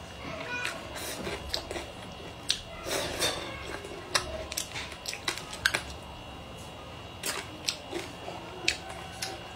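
Wooden chopsticks clicking irregularly against a ceramic rice bowl as food is picked over, with close-up chewing of cured fish and vegetables in between.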